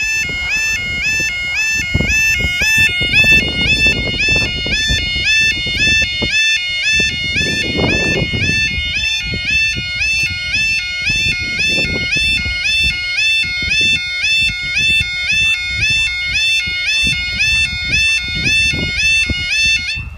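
UK level crossing warning alarm (yodalarm): a loud electronic two-tone warble repeating rapidly, a few cycles a second, as the barriers lower, over a low rumbling noise. It cuts off suddenly near the end as the barriers come fully down.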